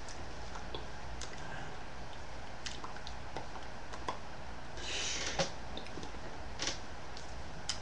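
Room tone: a steady low hum with scattered small clicks and a short hiss about five seconds in.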